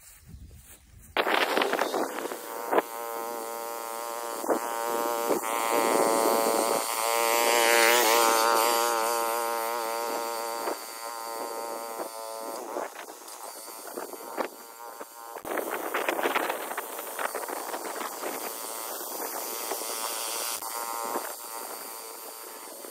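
Small engine of a walk-behind cultivator fitted with a plough, running steadily while it tills soil. It starts suddenly about a second in, and its note wavers around the middle as the load changes.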